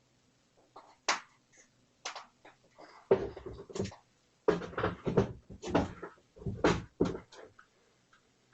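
A moose sniffing and licking at a front door right against a doorbell camera's microphone: a string of short sniffs and rubbing noises, the heaviest in the middle few seconds.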